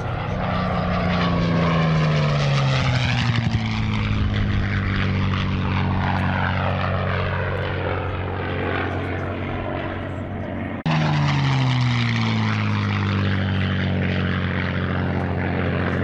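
P-51 Mustangs' Packard Merlin V-12 piston engines running loud as the fighters fly past, the engine note falling in pitch as each one passes. About eleven seconds in the sound cuts abruptly to another pass with the same falling note.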